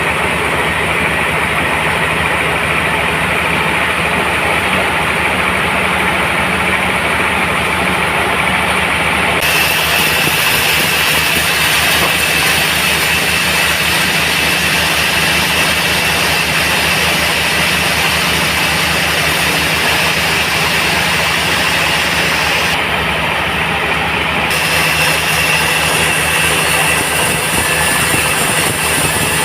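Band sawmill running steadily with a low machine hum; about ten seconds in, a bright hiss joins it and carries on.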